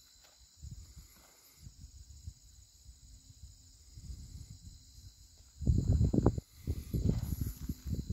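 Insects chirring steadily in the background, with low rumbling noise on the microphone. The rumble comes in faint bouts at first and turns much louder from about five and a half seconds in.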